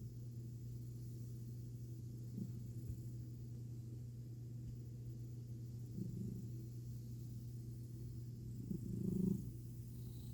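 An American Ringtail cat purring steadily, with a short louder swell every few seconds, the strongest about nine seconds in.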